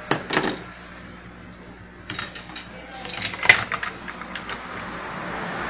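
Scattered light clicks and taps of a small metal refrigerator thermostat and its capillary tube being handled and laid on a hard surface, in a few short clusters, the loudest about three and a half seconds in.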